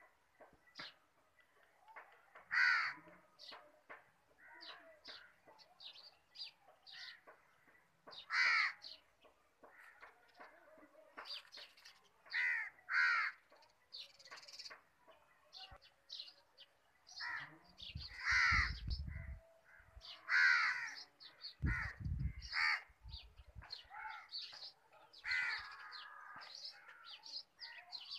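Crows cawing again and again, harsh calls about half a second long, with small birds chirping in between. Two short low rumbles come about two-thirds of the way through.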